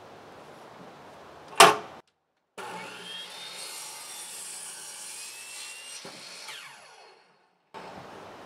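Electric miter saw cutting through a treated lumber board: the motor whines as the blade runs through the wood, and the pitch falls away near the end as the blade winds down. A loud sharp knock about a second and a half in.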